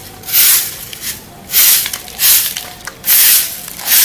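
Stick broom sweeping leaves across paving blocks: a brisk swish with each stroke, about five strokes in a steady rhythm.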